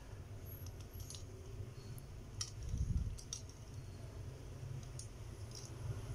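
Faint, scattered small clicks and handling noise from hands working a plastic Beyblade top while pressing a sticker onto it, with a low bump about three seconds in.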